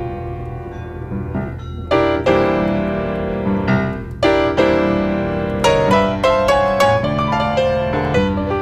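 Blues piano music: struck chords and quick repeated notes over a steady low bass line.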